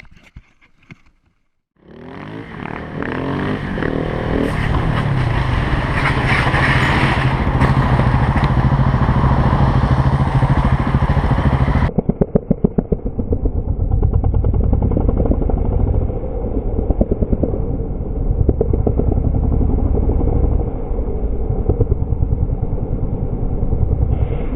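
Motorcycle engine running loud under wind noise, starting about two seconds in. Near the middle the sound cuts abruptly to a more muffled recording of an engine with a rapid pulsing beat.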